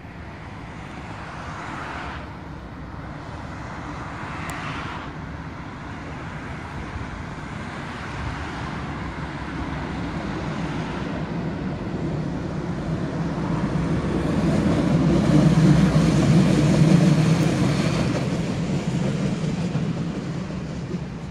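Road traffic with a pair of coupled Konstal 805Na trams approaching along the track and passing beneath. Their low rumble builds to a peak about three-quarters of the way in, then fades.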